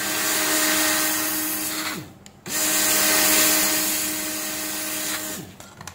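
Hot air rework pencil of a Weller WR3M station blowing onto the pins of an SMD IC to solder it: a steady rushing hiss with a low hum, in two spells of about two and three seconds with a short stop between.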